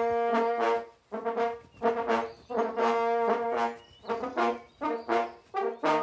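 Hunting horn playing a slow fanfare of held notes separated by short breaks, the longest notes lasting about a second.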